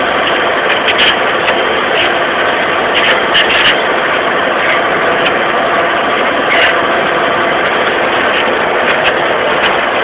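John Deere tractor engine running hard under load while pulling a plough, a steady, loud drone with occasional short knocks and rattles.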